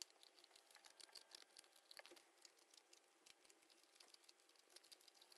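Faint, quick snips of scissors cutting small notches into thin cereal-box cardboard, with light rustling of the card as it is handled; one snip at the start and another about two seconds in stand out.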